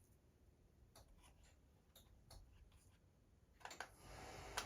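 Near silence: a Monte Carlo Vios ceiling fan running quietly on low speed in reverse, with a faint low hum and a few faint scattered clicks.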